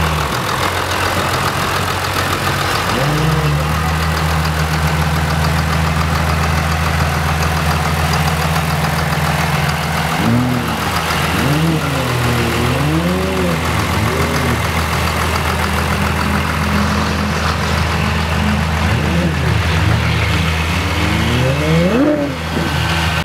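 Cummins 6BT inline-six turbo diesel idling steadily in an open-engined rat rod pickup. A wavering pitched sound rises and falls over the engine note several times.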